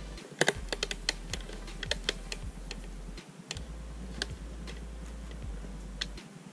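Irregular small plastic clicks and ticks, a few a second, as a car side-mirror glass is worked and pried off its mount in the mirror housing.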